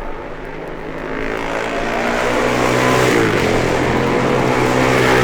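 Racing motorcycles, Bob McIntyre and Noel McCutcheon, coming through at speed, their engine notes growing louder over the first three seconds and then staying loud. The pitch shifts about three seconds in as they pass and change gear.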